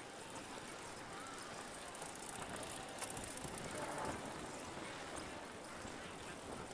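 Riding a bicycle along a paved street: steady rolling and wind noise, a little louder about three to four seconds in.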